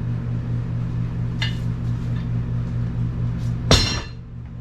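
Steady electrical hum from a running machine, with a light click about a second and a half in and a sharp metallic clank near the end, after which the hum briefly drops out.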